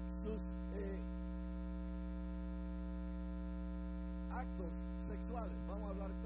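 Steady electrical mains hum with a stack of evenly spaced overtones, under faint speech near the start and again in the last two seconds.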